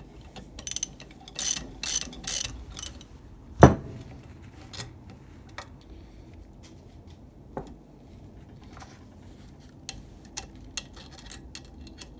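Hand ratchet clicking and metal tools clinking as a bolt is screwed down on a homemade valve-spring compressor, levering a valve spring off a cylinder head. There is one loud, sharp metal clank about three and a half seconds in, and a run of quick ratchet ticks near the end.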